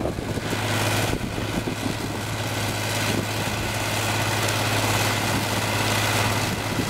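Perkins six-cylinder 5.8-litre diesel engine of a tracked bog ditcher running steadily under load, with a constant low hum, while the Pirelli ditching wheel cuts and throws peat.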